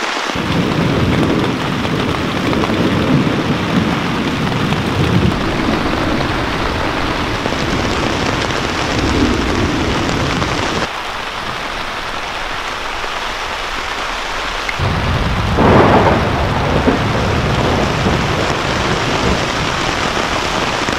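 Heavy rain pouring steadily onto a tarp shelter in a thunderstorm, with thunder rumbling. The rumble drops away about halfway through, then comes back about three-quarters of the way in with a loud crack of thunder and more rolling rumble.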